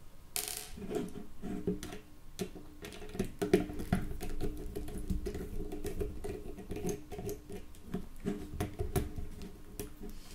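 Irregular small clicks and scratches of a precision Torx T6 screwdriver working tiny screws out of a Nokia 3310's keypad frame, with light taps as the tool and screws touch the phone and desk.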